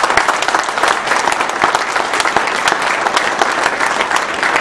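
Audience applauding, a dense, steady spatter of many hands clapping.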